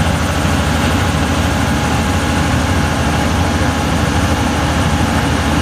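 Excavator's diesel engine running steadily with a deep, even rumble.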